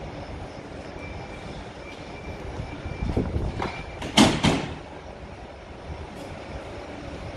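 A MÁV InterCity train stands at the platform about to depart, giving a steady low rumble. A series of short high beeps comes about twice a second for a few seconds, then, about four seconds in, two loud sharp bursts of noise half a second apart.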